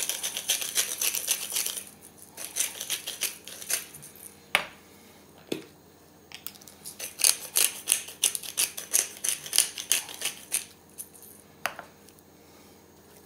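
Hand spice mill being twisted to season meat: a fast run of grinding clicks for about two seconds, then further bursts of clicking, with a few single sharper knocks in between.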